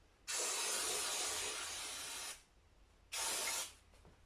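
Aerosol spray cleaner hissing in two bursts, first a long one of about two seconds, then a short one. It is being sprayed inside an engine to flush out dirty old oil and debris.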